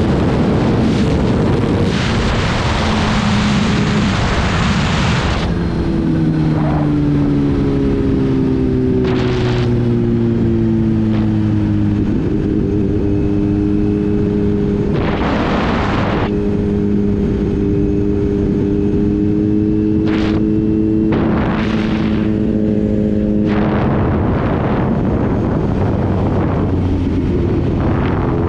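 Kawasaki Z H2's supercharged inline-four running as the bike slows, its engine note sliding down in pitch and stepping back up about halfway through. Several loud gusts of wind noise buffet the microphone.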